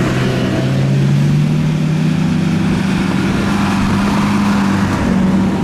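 Engine of a lifted Suzuki Vitara off-road SUV running under light throttle as it crawls over snowy, rocky ground; the engine note rises a little over the first two seconds and then holds steady.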